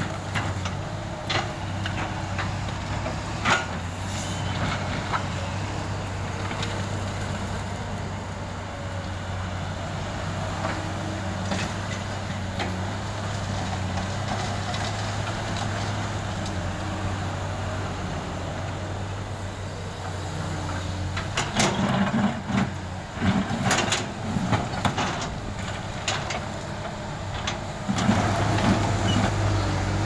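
Komatsu PC200 hydraulic excavator's diesel engine running steadily as it digs up broken asphalt, with occasional sharp knocks of the bucket and asphalt chunks. About two-thirds of the way through comes a burst of clattering and banging as broken asphalt is moved and dropped, and near the end the engine hum gets louder.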